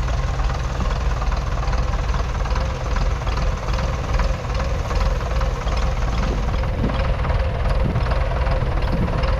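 A 1951 Nuffield Universal DM4's 3.4-litre four-cylinder diesel engine running steadily.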